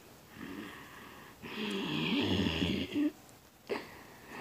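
A person making snoring sounds: a short, quieter rasping breath, then a longer, louder snore with a wavering, rattling tone.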